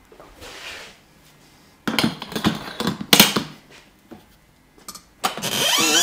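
Barber chair being tilted back. About two seconds in there is a burst of rustling and clattering as the chair and cape are handled; near the end comes a loud hiss with a creaking, sweeping squeal from the chair's recline mechanism.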